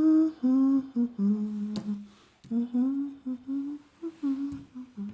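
A woman humming a slow tune: a string of held notes, each a fraction of a second to about a second long, stepping up and down in pitch.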